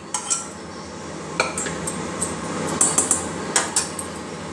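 Metal spoon scraping and clinking against a pressure cooker and a steel bowl as curry is scraped out, with a few sharp clinks about a second and a half in and a cluster near the end.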